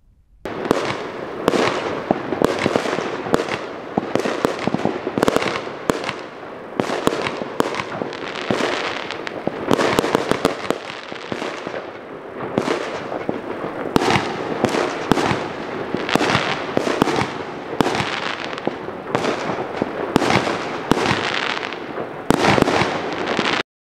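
Fireworks going off in a long, dense barrage: sharp bangs and crackles following each other several times a second, overlapping throughout, then cutting off suddenly near the end.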